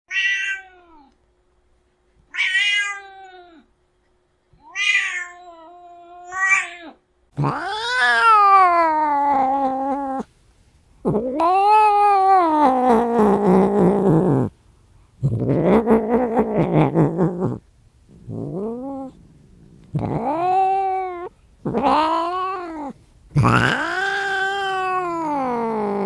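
Domestic cat meowing: four short meows in the first seven seconds, then a run of longer, louder, drawn-out meows that rise and fall in pitch, one after another with short gaps.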